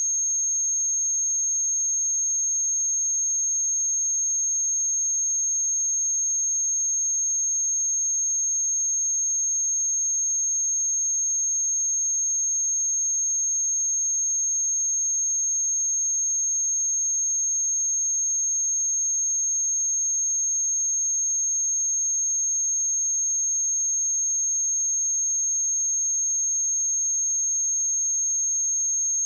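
A pure sine-wave test tone at 6454 Hz, a single steady high-pitched whistle held at one level.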